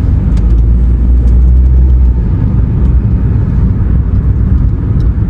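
Road and engine noise inside a moving car's cabin: a steady low rumble that swells slightly about a second in.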